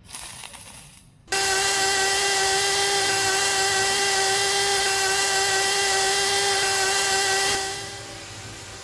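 A small, fast motor whining at one steady high pitch. It starts abruptly about a second in and fades near the end.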